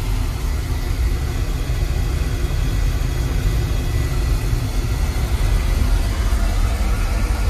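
Oil burner of a Weil-McLain boiler firing: a steady low rumble of the flame and burner motor running without change.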